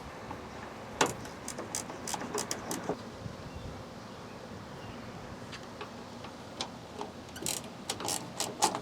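Hand ratchet clicking in quick runs, about a second in and again near the end, as the 8 mm bolts holding a tail light assembly are backed out.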